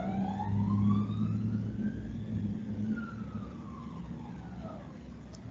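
Emergency vehicle siren wailing: one slow rise and fall in pitch over about five seconds, fading as it goes, over a low steady hum. A faint click near the end.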